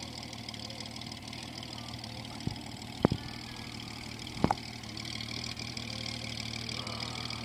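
Honda Gold Wing flat-six engine idling steadily, with a few sharp knocks around the middle.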